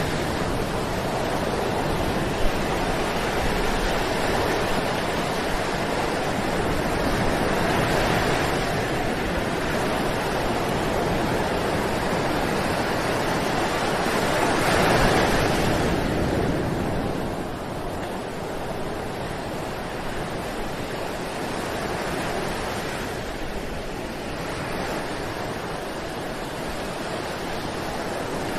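Ocean surf: waves washing onto a beach in a steady rush, swelling as each wave breaks, with the largest swell about halfway through.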